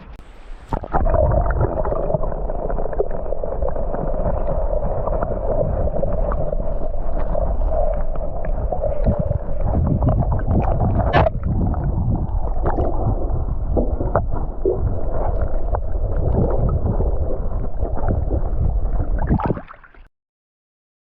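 Water gurgling and rushing close against the microphone: a loud, steady, muffled rumble with scattered knocks that cuts off suddenly near the end.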